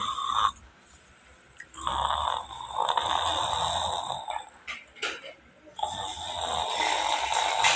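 Domestic cat snoring in its sleep: raspy snores with short pauses between breaths. One snore ends about half a second in, another runs from about two seconds to four and a half, and a third starts about six seconds in.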